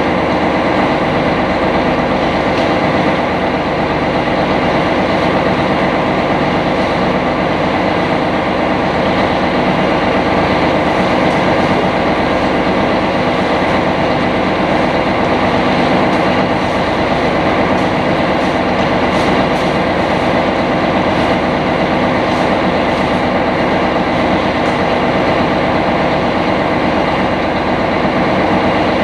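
Lake Toya sightseeing boat's engine running steadily while under way, a constant drone with a low hum, heard from inside the passenger cabin.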